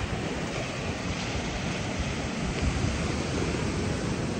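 Wind buffeting the microphone in uneven gusts, over a steady hiss of sea surf washing onto a sandy shore.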